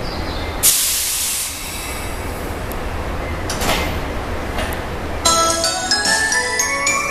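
A Keihan 2400 series electric train standing at the platform over a low steady hum, with a loud burst of air hiss about a second in and two fainter hisses later. About five seconds in, a station departure melody of bright chime tones starts, the signal before the doors close.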